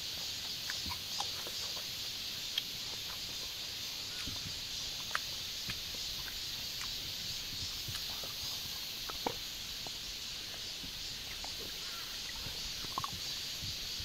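A steady high hiss with scattered short faint clicks and chirps.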